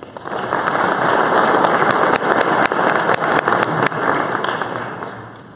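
Audience applauding, building up at once and dying down near the end.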